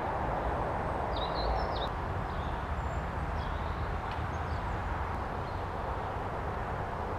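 Steady outdoor background noise, a low rumble and hiss, with a few faint bird chirps, a short run of them about a second in.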